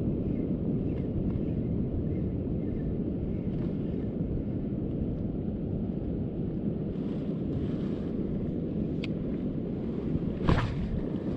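Steady low rumble of wind buffeting the microphone, with a single short sharp knock near the end.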